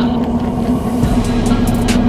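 Fish frying in hot grease, with scattered pops and crackles, under steady background music.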